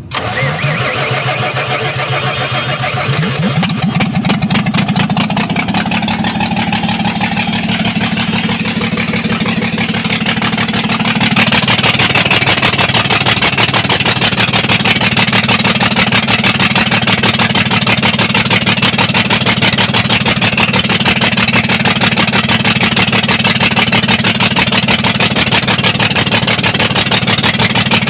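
Diesel engine of a Tata 2825 BS6 truck coming to life, its pitch rising over the first few seconds, then running steadily and stepping up louder about eleven seconds in. The running is meant to show an injector misfire.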